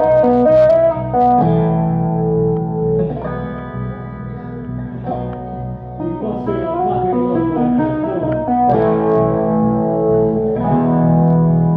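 Distorted electric guitar playing held rock chords through an amplifier, live, the chord changing every second or two.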